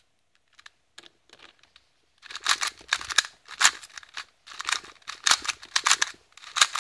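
Plastic 2x2 speed cube turned rapidly by hand: a few faint clicks at first, then from about two seconds in a fast run of loud clicking and rattling as the layers are spun.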